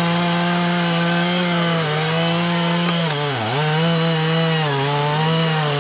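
Two-stroke gas chainsaw running at high revs while cutting through a log. The engine pitch sags a little under load twice, and bogs down sharply about three and a half seconds in before recovering.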